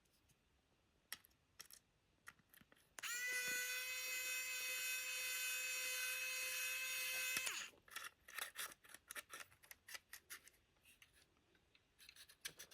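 A small handheld power tool's electric motor spins up and runs with a steady high whine for about four and a half seconds, then stops. Light clicks and taps of handling come before and after.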